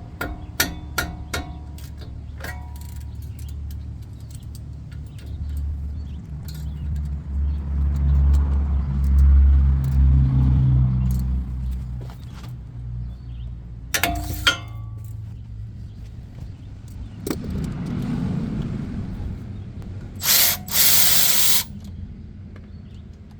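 Power tool bursts, likely a cordless impact wrench or ratchet loosening the two 17 mm brake caliper bolts, with a short burst near the middle and a longer one near the end. Tools click and knock throughout over a low rumble that swells in the middle.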